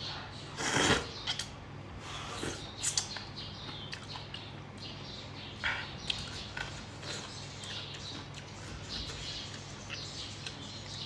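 A person eating close to the microphone: irregular chewing and mouth sounds with a few short, louder noisy bursts, the loudest about a second in, over a steady low hum.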